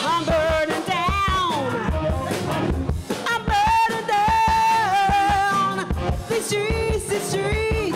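Live band playing with a woman singing lead; she holds a long note in the middle and a lower one near the end, over drums.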